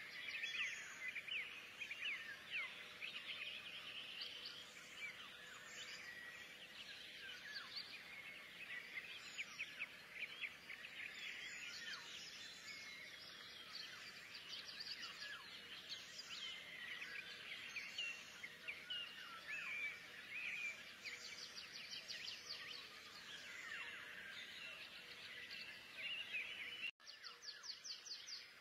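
Many small birds chirping and twittering together without pause, over a faint steady hum, with a brief break near the end.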